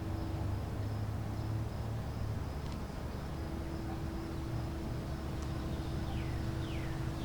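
Outdoor background before a siren test: a steady low rumble with a faint steady high whine, and three quick downward-sliding bird chirps near the end.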